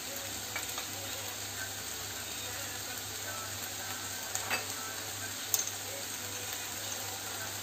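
Chopped onion, tomato and capsicum frying in butter in a kadai, a steady sizzle with a couple of faint clicks about halfway through.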